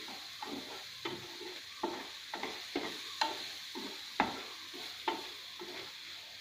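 Prawns sizzling in a little oil in a non-stick frying pan as they are fried dry, stirred with a black spatula that scrapes and taps against the pan in uneven strokes, a little under two a second.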